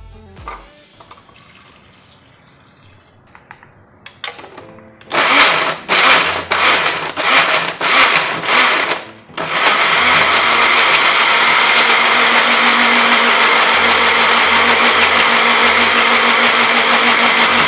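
Countertop electric blender pulsed in several short bursts, then run steadily for about eight seconds and switched off abruptly, grinding garlic, onion and water into a paste. A few light handling clicks come before the motor starts.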